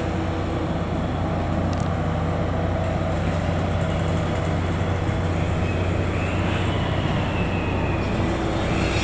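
Diesel engine of a rail motor car running steadily with a low hum as it pushes a rail-laden flat wagon at walking pace. A faint high squeal comes in about six seconds in.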